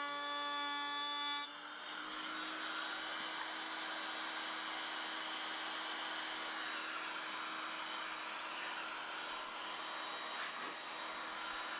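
A woodworking power tool's motor running steadily with a high whine. About a second and a half in the sound drops a little and turns noisier around one held tone, and a short hiss comes near the end.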